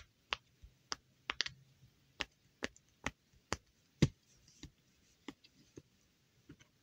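Silicone pop-it fidget toy having its bubbles pressed in one by one with a finger: a string of short, soft pops, roughly two a second, with a quick run of three about a second and a half in and the loudest pop about four seconds in.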